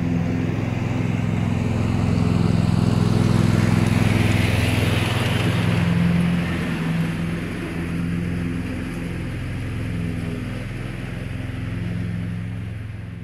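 Husqvarna TC238T garden tractor's engine running steadily as the ride-on mower drives away, easing off after about six seconds.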